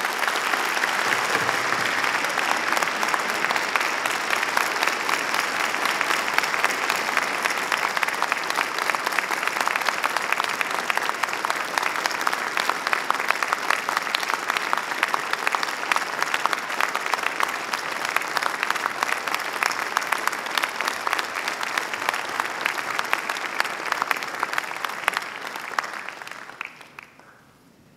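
Large audience applauding in a long, dense standing ovation, the clapping dying away near the end.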